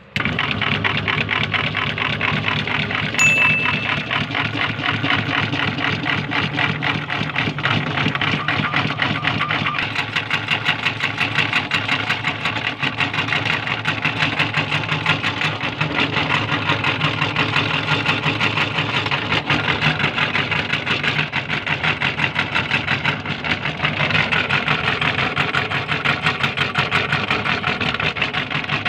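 Electric meat grinder motor switched on abruptly and running steadily with a fast, even whir. A brief high ping sounds about three seconds in.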